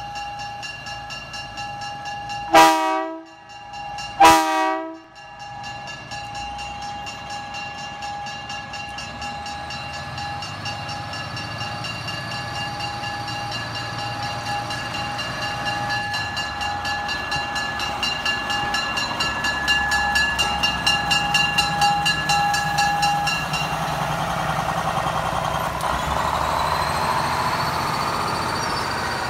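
Budd Rail Diesel Car sounding two short horn blasts, then its diesel engines running with a steady whine and a low rumble that grows louder as the car pulls away past.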